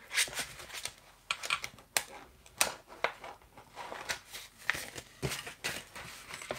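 Plastic packets of cutting dies being handled and stacked: irregular crinkling and rustling of clear plastic with several sharp clicks and taps as the packages are set down.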